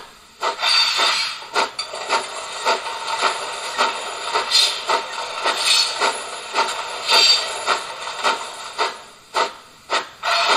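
ESU LokSound 5 sound decoder in a 1:32 gauge 1 model of a Prussian T3 steam tank locomotive, playing slow-speed steam chuffs through its loudspeaker, a few beats a second. Short high curve squeals of wheel flanges come in several times over the chuffing.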